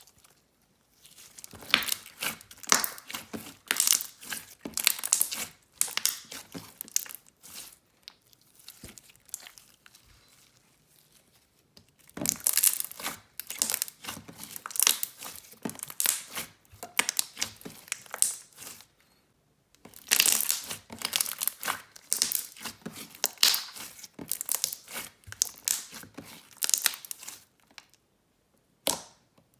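Purple clear slime being squeezed and worked by hand, making rapid sticky clicks and bubble pops in three bouts with short pauses between.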